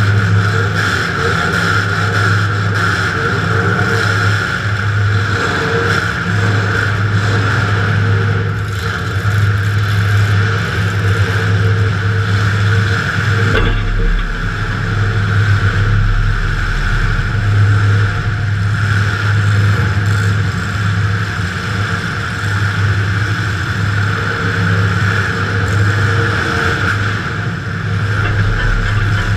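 Demolition derby car's engine running loud and steady, heard from inside the car, with a deeper rumble coming in for a few seconds about halfway through.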